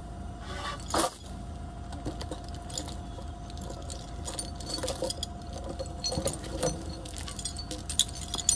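Steel chain clinking and rattling in short irregular bursts as it is wrapped around the base of a wooden fence post and hooked up, with the loudest clank about a second in. Underneath, a Yale forklift's engine idles steadily.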